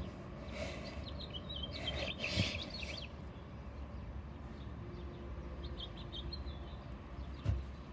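Small birds chirping in quick, wavering runs, loudest in the first three seconds and fainter again around six seconds, over a low, steady background rumble; a soft thump near the end.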